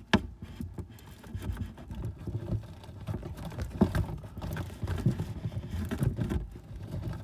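Irregular light taps, knocks and scraping as a fiberglass glow rod drags a flexible foil duct through tight wooden attic framing, with a sharp click just after the start.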